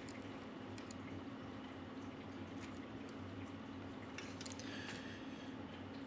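Faint handling noises of hands working hard start kit wires and connectors at a refrigerator compressor's terminal pins: a few soft clicks and rustles over a steady low hum.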